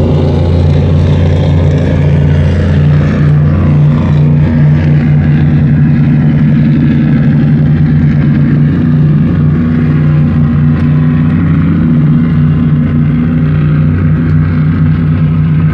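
Motorboat engine running steadily at a constant pitch, loud and close.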